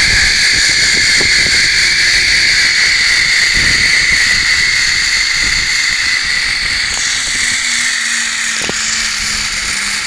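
Zipline trolley pulleys running along the steel cable: a steady high whine that sinks slightly in pitch and loudness, with wind rumbling on the microphone.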